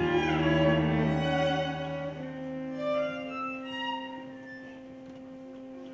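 String quartet of two violins, viola and cello playing slow sustained chords. A full chord over a low held cello note lasts about two seconds, then the music thins to soft held notes and grows quieter.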